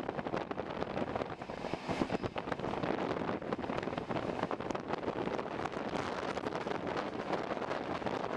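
Passenger train running at speed, heard from an open coach door: wind buffeting the microphone over the rush and irregular clatter of wheels on the rails, with the noise thrown back by a tank-wagon goods train close alongside on the next track.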